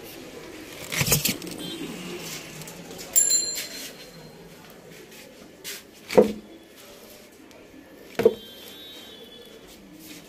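Handling noise from spools of kite string being picked up and moved about: a rustle about a second in, a short clink with a ringing tone after three seconds, and two sharp, hollow knocks in the second half.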